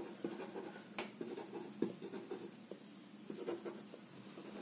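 Felt-tip marker writing on paper: a quick run of short scratchy strokes and taps as letters are written one after another, with one sharper tap about a second in.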